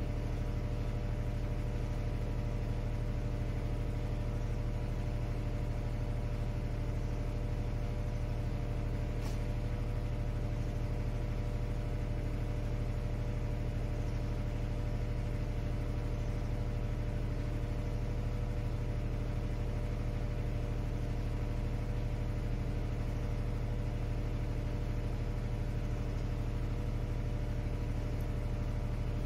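Engine of a truck-mounted boom lift running steadily, with an even, unchanging low hum.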